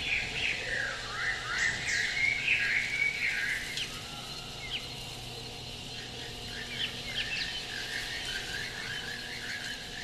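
Film sound-effect ambience of many small animal calls: short chirps and croaks overlapping in a dense chorus. It is busiest and loudest in the first four seconds, then thins to scattered chirps, over a faint steady hum.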